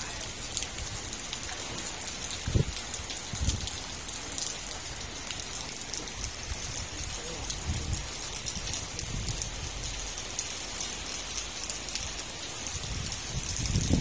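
Steady rain pattering on roofs and ground, with many fine drop ticks and water dripping off a roof edge. A few low thumps, with low rumbling growing near the end.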